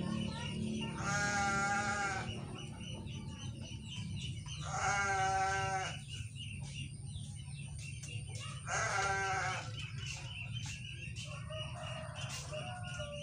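A farm animal bleating three times, each call about a second long with a wavering pitch, over a steady low hum.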